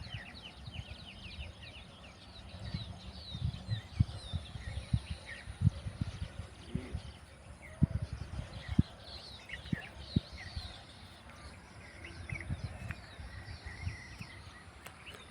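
Rural outdoor ambience of many small birds chirping, over a low rumble with a few soft low thumps in the middle.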